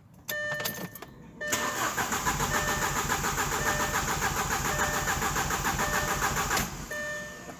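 Audi A4 2.0 turbo engine cranked on the starter for about five seconds without firing, in even pulses, then cut off suddenly. Cylinder 1's spark plug is replaced by a pressure transducer and the other cylinders' coils are unplugged. A dashboard chime beeps before the cranking and again after it.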